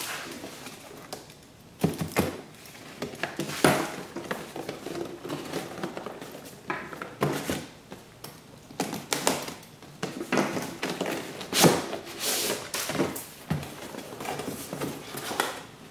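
Cardboard box being handled: tipped over, set down and its outer sleeve slid off the inner box, giving scattered knocks against the table and scraping rustles. The sharpest knocks come about two, four and twelve seconds in.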